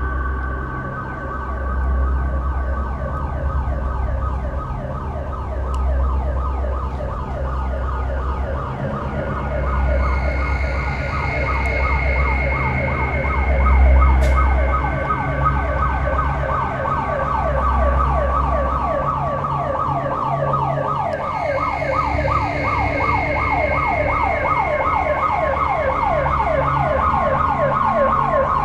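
Building alarm in the abandoned hospital sounding continuously: a fast electronic warble of rising sweeps, about four a second, over steady tones. Low rumbling swells and fades beneath it during the first two-thirds.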